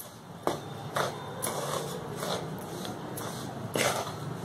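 Wooden spatula stirring and scraping dry chilli powder, salt and spice mix around a steel kadhai, with a few light knocks of the spatula against the pan, the sharpest a little before the end.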